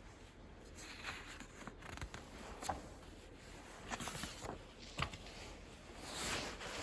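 Handling of a plastic model kit's cardboard box and bagged parts: rustling with scattered light clicks and knocks, growing busier near the end.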